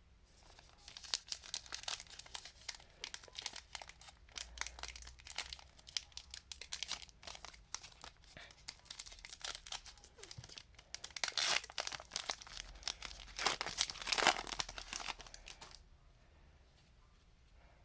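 Plastic wrapper of a trading-card pack crinkling and tearing as it is opened, a dense crackle that stops about sixteen seconds in.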